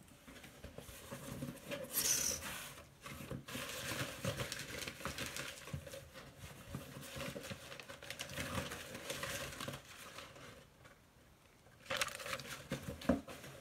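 Cardboard shipping box being opened and handled: flaps and cardboard scraping and rustling irregularly, with a louder burst about two seconds in. Near the end, paper and plastic packaging crinkle as the kit is lifted out.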